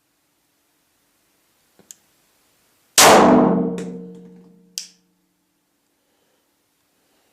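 A single shot from a 9mm Glock 17 pistol, fired indoors, about three seconds in: a sudden loud crack that rings and echoes away over about two seconds. Just before it come two faint clicks, and a short, high metallic tink follows near the end.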